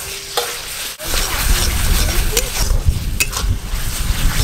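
Metal spatula stirring and scraping a frying masala paste in an aluminium kadai, with sizzling and a few sharp clinks of the spatula against the pan. After about a second, wind rumbles on the microphone.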